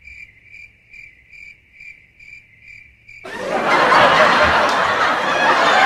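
Cricket chirping sound effect, evenly repeated about two and a half times a second, used as the comic "crickets" for an awkward silence. About three seconds in it is cut off by a sudden, much louder rushing noise.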